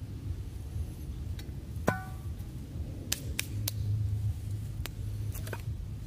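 A handful of sharp knocks and clicks of hard objects, the first, about two seconds in, ringing briefly, over a steady low rumble.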